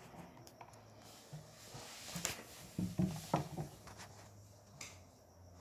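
Plastic Lego bricks clicking and clacking faintly as they are handled on a wooden tabletop: a few scattered light knocks, the firmest about two to three and a half seconds in.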